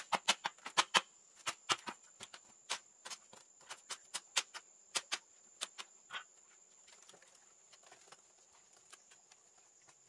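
A rapid, irregular series of sharp knocks, dense for about the first six seconds and then thinning to a few scattered ones, over a faint steady high tone.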